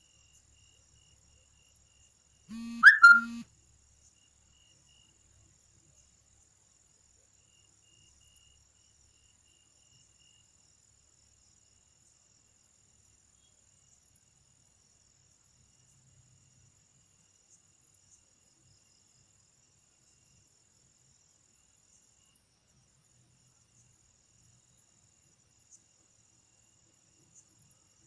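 Faint, steady high chirring of crickets. A brief, loud sound of unknown source, in two parts, comes about three seconds in.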